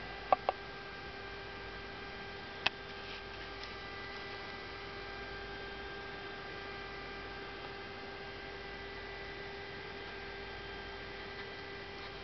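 Steady electrical hum made of several fixed tones. Two sharp clicks come close together about a third of a second in, and one more near three seconds in.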